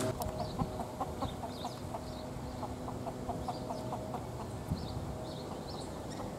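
Chickens clucking in a quick run of short, evenly repeated clucks that stops about four seconds in, with faint high chirps of small birds around it.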